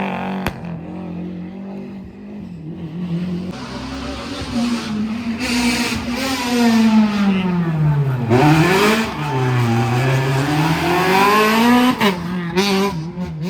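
Rally car engines revving hard and changing gear, the pitch climbing, then dropping and climbing again, with a deep drop and recovery about eight seconds in, as on braking for a corner and accelerating away.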